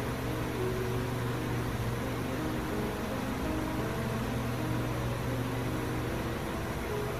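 Background music playing quietly over a steady low hum.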